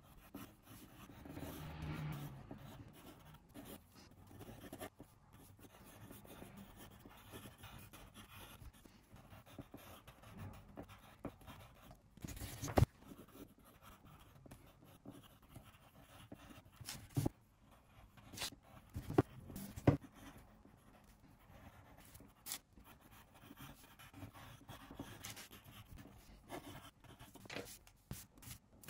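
Faint scratching of a pencil on paper as a drawing and lettering are sketched, broken by a few sharp knocks; the loudest come about 13 s and 20 s in.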